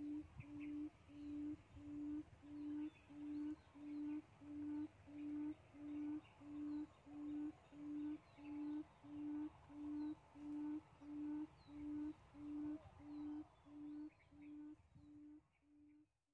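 A low hooting note repeated at a perfectly even pace, about three every two seconds, growing fainter near the end, with faint bird chirps behind.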